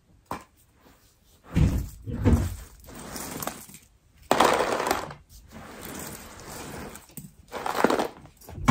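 Plastic hair clips and hair ties rattling and clattering as they are handled in handfuls and dropped into a clear plastic storage box. The clatter comes in several irregular bursts.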